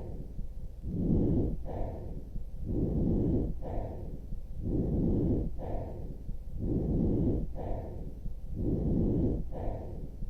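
Breath sounds heard through a stethoscope: about five breaths, repeating every two seconds or so. Each is a longer rushing sound followed by a shorter, sharper one, with no musical wheeze tones.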